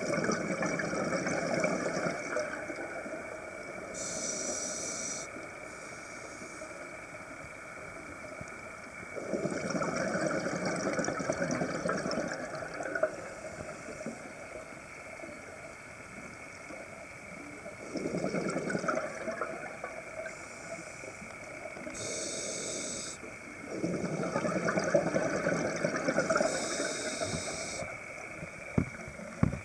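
Scuba diver breathing through a regulator underwater: short sharp hisses on the inhale and longer bubbling rushes on the exhale, repeating every several seconds.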